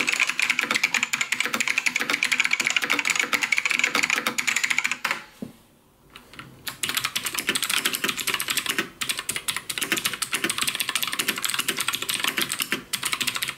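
Fast typing on mechanical computer keyboards: a run of rapid key clicks, a brief pause about five seconds in, then a second run of typing with a deeper, different-sounding click.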